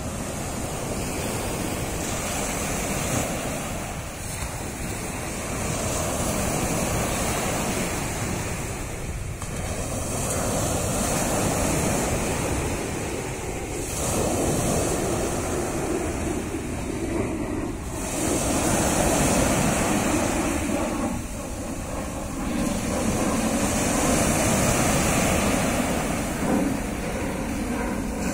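Surf on a rough sea: small waves breaking in foam and washing up a sandy beach, the rush swelling and fading every few seconds.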